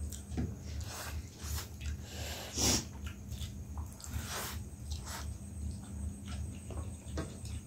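Instant noodles being slurped and chewed up close, with small clicks of a fork and chopsticks against plates. The loudest slurp comes about two and a half seconds in, and another shorter one follows a couple of seconds later.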